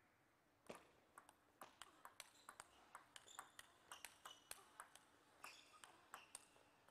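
Table tennis rally: the ball clicks sharply and irregularly off the rubber paddles and the JOOLA table in quick alternation. It starts under a second in and stops shortly before the end.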